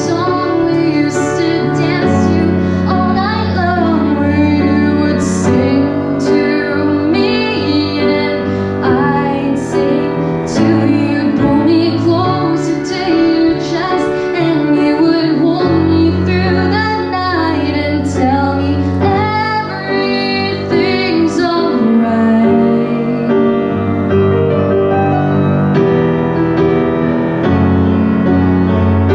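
A woman singing a slow song to her own grand piano accompaniment. Near the end the voice falls away and the piano carries on alone.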